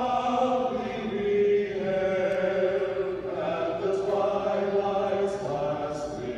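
Vocal quartet singing a cappella in harmony, holding long sustained chords that shift pitch every second or two, with brief sung consonants between phrases.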